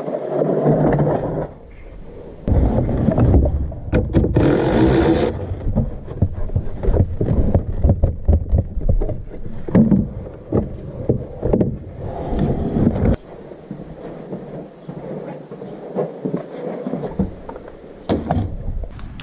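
Irregular knocks, clicks and scraping from hands and tools working on car parts, over a low rumble, with a brief hiss about four seconds in.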